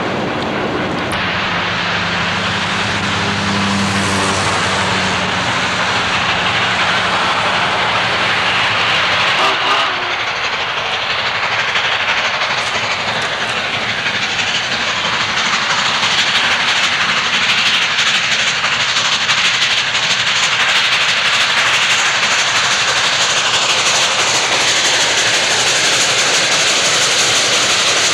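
Southern Pacific 4449, a GS-4 4-8-4 steam locomotive, running past at speed: a steady, loud rush of exhaust steam and wheel-on-rail noise. Over the first third a steady low drone is heard, which cuts off abruptly.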